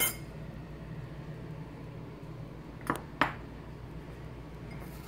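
Kitchenware knocking twice in quick succession about three seconds in, with a lighter click at the start, over a low steady background hum: small prep bowls and utensils being handled while ingredients go into a mixing bowl.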